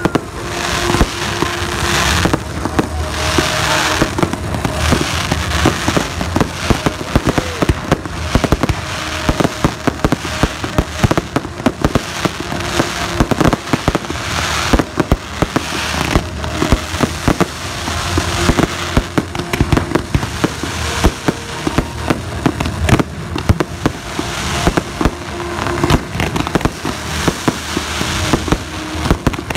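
Aerial fireworks display: a rapid, continuous barrage of bangs from shells bursting overhead, with no let-up.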